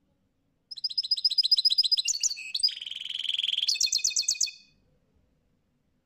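European goldfinch singing: a burst of about four seconds of rapid, high twittering notes with a buzzy trill in the middle.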